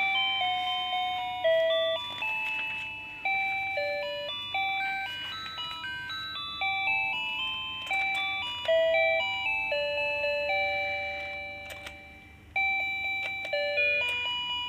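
Simple electronic chime melody: a tune of bell-like single notes, each struck and fading away, with a brief break about twelve seconds in.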